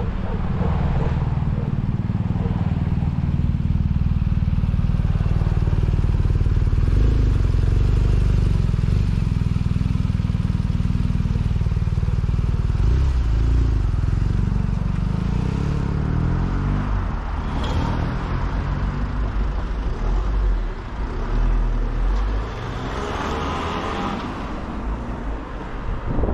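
Low wind rumble on the microphone of a camera mounted on a moving bicycle, with road noise. Around the middle a car's engine is heard close ahead, changing pitch as it moves off.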